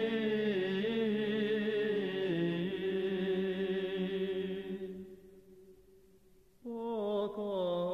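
Orthodox male monastery choir singing a long, drawn-out "Amen" in close chordal harmony, answering the closing "unto ages of ages". It fades out about five seconds in, and after a short pause the choir starts the next chant.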